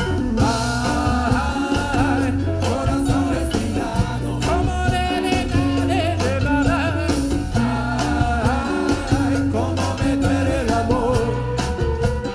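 Live Latin rock band playing a steady groove: drum kit and congas over bass and electric guitars, with a wavering lead melody on top.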